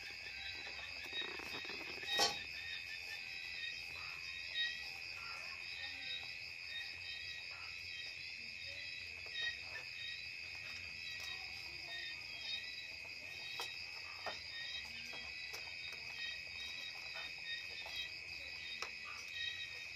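Steady, high insect chirring with a fine pulse, over scattered soft clicks and rustles of a rabbit nosing through hay, with one louder knock about two seconds in.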